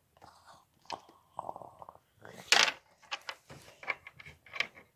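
Handling noise from a plastic toy stable and figures: a string of light clicks and knocks with brief rustles, the loudest a short rush of noise about two and a half seconds in.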